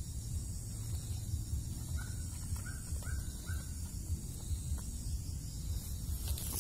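A bird gives four short calls in quick succession, starting about two seconds in, over a steady high-pitched insect hiss.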